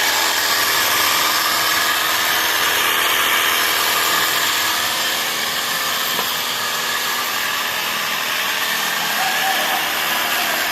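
Ecosen portable jet cleaner running steadily: the electric pump motor's whine under the hiss of the water jet.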